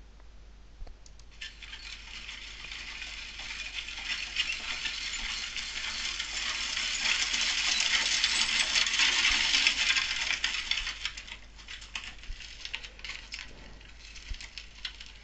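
Sound-effect recording of a horse and carriage arriving, starting about a second in and growing louder to a peak around nine seconds in, then fading away to a few scattered clicks.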